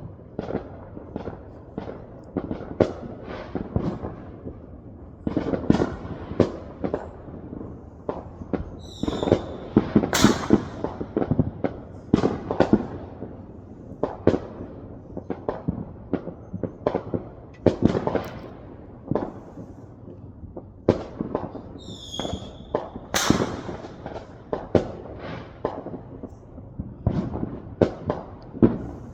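Consumer fireworks and firecrackers going off over and over, an irregular run of sharp bangs and rumbling booms near and far. A short wavering whistle sounds twice, around a third of the way in and again past the middle.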